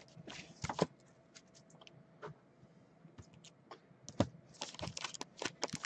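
Light, irregular key clicks of typing on a computer keyboard, coming faster near the end.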